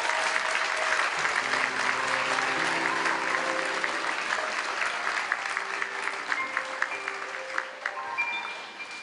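Audience applauding as a performer walks on, with a small band of piano and drums starting a walk-on vamp about a second in. The clapping thins near the end, leaving the band's notes clearer.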